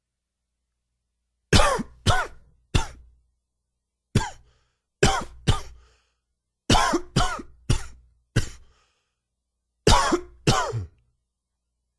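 A man coughing a dry, wheezy cough, which he puts down to allergies: about a dozen sharp coughs in short fits of two to four, with brief pauses between the fits.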